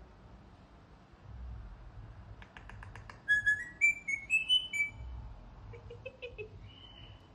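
Pet bird whistling: a few quick clicks, then a short run of clear whistled notes stepping up in pitch, with softer chirps near the end.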